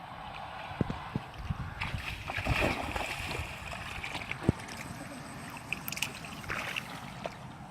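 Water splashing and sloshing, with a few sharp knocks.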